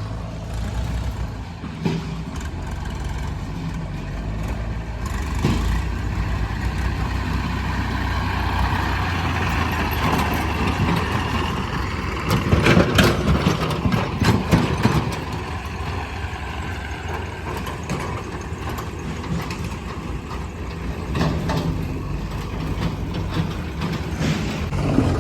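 Heavy diesel engine of earthmoving machinery running steadily, with a burst of sharp clattering knocks about halfway through.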